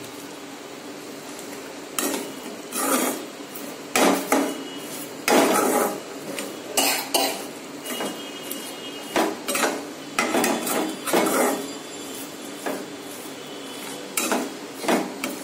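A flat spatula scrapes and stirs popcorn around the inside of a metal kadai, tossing it to coat it with butterscotch syrup. The strokes are irregular, roughly one every half second to a second, and begin about two seconds in.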